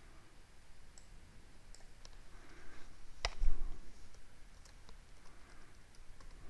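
Scattered computer mouse clicks and keyboard keystrokes while a text label is selected and retyped, with one louder click a little past three seconds in.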